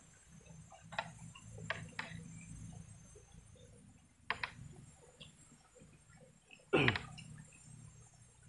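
Quiet eating sounds: scattered clicks and taps from a spoon on a plate and from chewing, with one louder falling scrape about seven seconds in.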